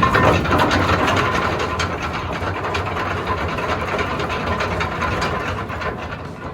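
Ship's anchor chain running out after the anchor is let go, a dense, rapid metallic rattle that dies down near the end.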